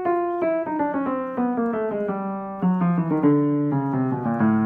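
Ritmüller RS122 upright piano played: a quick descending run of single notes, then louder, fuller notes lower down from about halfway through.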